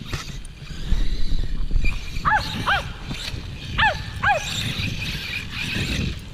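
Small dog barking four short, high yaps in two quick pairs over a low rumbling noise, which is loudest about a second in. A faint steady high whine runs under the barks.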